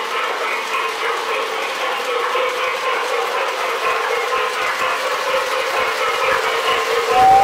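O-gauge toy train, an MTH RailKing Hiawatha locomotive pulling Lionel passenger cars, running on three-rail track: a steady motor whir and wheel clatter. A whistle toot starts near the end.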